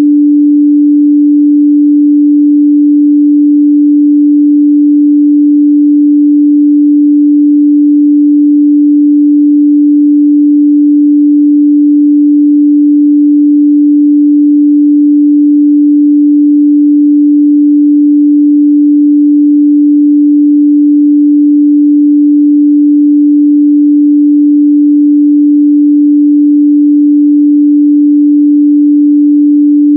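A continuous 293 Hz sine-wave test tone, one pure steady pitch held at a constant loud level.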